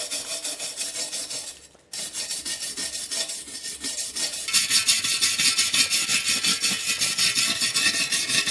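Hand wire brush scrubbing a rusty steel scooter expansion-chamber exhaust in quick, even back-and-forth strokes, roughing up the surface and knocking off rust flakes so paint will stick. The strokes stop briefly a couple of seconds in, then carry on harsher from about halfway.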